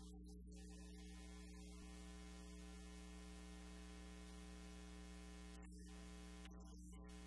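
Near silence apart from a steady electrical mains hum.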